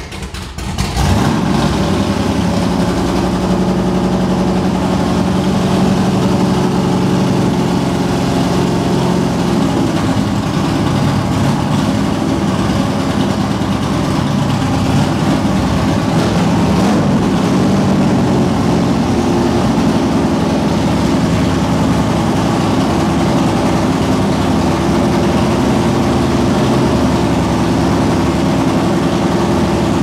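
Chrysler 440 big-block V8 in a Dodge Challenger idling steadily, coming in loud about a second in. This is an engine brought back to running after sitting since about 1995.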